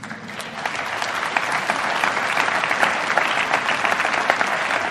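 Audience applauding: the clapping swells over the first second, then holds steady and full.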